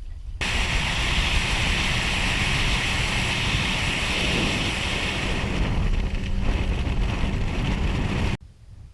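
Steady rush of wind buffeting the microphone and water hissing past the hull as the boat runs at speed, with a low rumble beneath; it starts suddenly just after the start and cuts off suddenly near the end.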